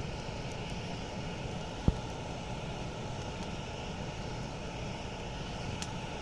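Campfire burning: a steady low rushing noise with one sharp pop about two seconds in and a faint crackle near the end.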